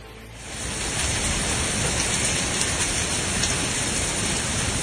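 Heavy downpour: the dense, steady hiss of torrential rain, which fades up within the first second and then holds steady.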